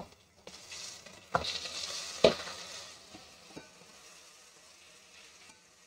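Raw mutton pieces going into hot oil with fried onions in a metal pot, sizzling, while a metal spoon stirs them and knocks against the pot twice. The sizzle fades over the second half.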